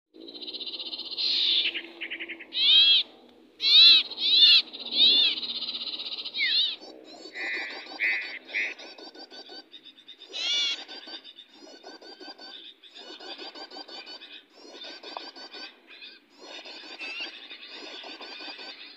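Small birds calling: repeated high, arching chirps and whistled notes with rapid pulsing trills beneath, loudest in the first seven seconds.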